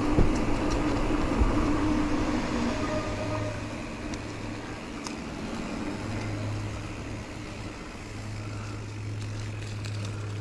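Mountain bike tyres rolling over a gravel and dirt lot: a steady crunching rumble that eases off after a few seconds as the bike slows. A low steady hum comes in and out in the second half.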